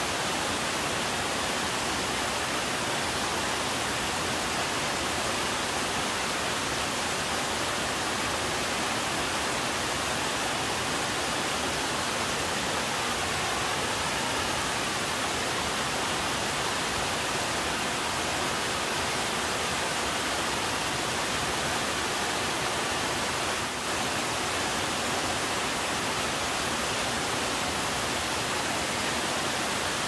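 Waterfall cascading over a sloping rock face into a pool: a steady rush of falling water.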